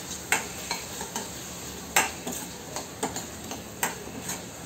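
Steel spoon stirring onion-tomato masala with freshly added dry spice powders in a stainless steel kadai, clinking and scraping against the pan about ten times at an uneven pace over a faint steady sizzle.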